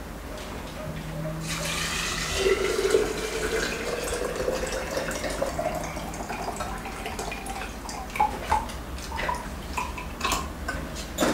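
Liquid poured from a steel saucepan into a glass jug of grapes. The pitch of the pour rises steadily as the jug fills. Near the end come a few splashes and light clinks, then a sharp knock.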